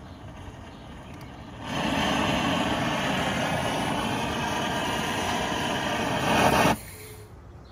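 Sear Pro propane searing torch on a small propane cylinder firing: a steady, loud rushing of gas and flame for about five seconds. It starts abruptly about two seconds in, swells a little just before it is shut off suddenly near the end.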